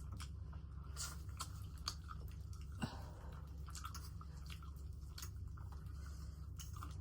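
Close-up chewing and biting of fried chicken, with many short crisp crunches and wet mouth clicks scattered through, over a steady low hum.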